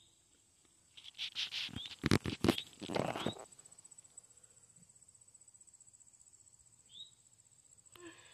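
Insects trilling steadily at a high pitch. About a second in comes a two-second burst of rustling with a few sharp knocks, which is the loudest sound here, and near the end there is a short rising chirp.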